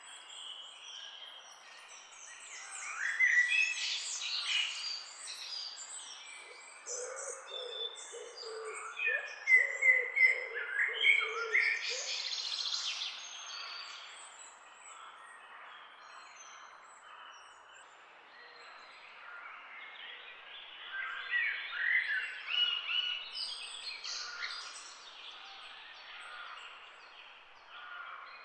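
Several birds chirping and singing, in louder spells of quick high chirps and trills with quieter stretches between. A lower-pitched call repeats underneath for a few seconds near the middle.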